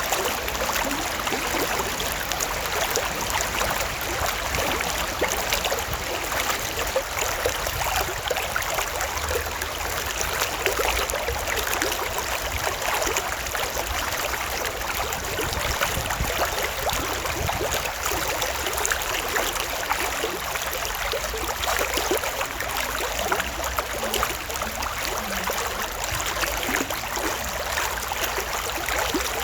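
Stream water flowing steadily over its bed, an even, unbroken rush with fine trickling.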